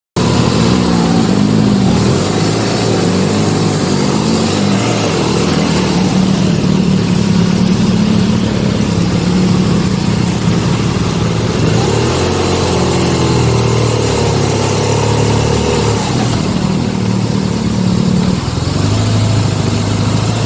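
KTM Duke motorcycle engine running while riding, its pitch rising and falling as the throttle is opened and closed.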